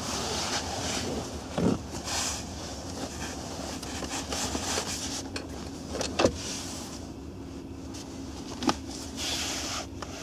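Handling noises from the rear centre armrest of a Skoda Octavia II as it is folded down and its storage lid opened: rubbing and rustling of the trim, with a few short knocks and clicks, the loudest about six seconds in. A steady low hum runs underneath.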